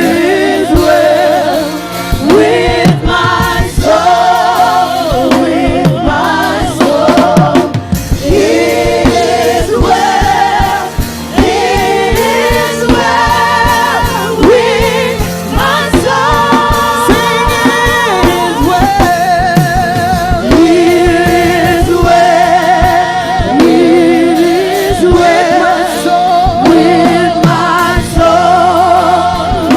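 A choir singing a gospel worship song over keyboard and drums with a steady beat.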